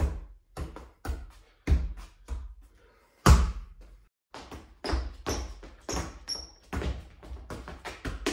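A football being juggled and kicked: irregular thuds and taps of the ball against shoes and a hard floor, roughly two a second, each ringing briefly in a small, echoey room. A few short high squeaks come about five to six and a half seconds in.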